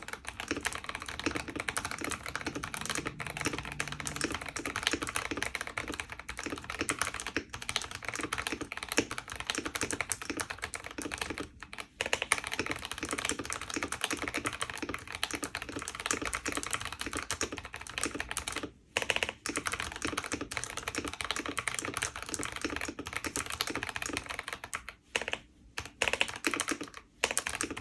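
Fast, continuous typing on a computer keyboard during a typing speed test, a dense run of key clicks with a few brief pauses, near 12 seconds, 19 seconds, and 25 to 27 seconds in.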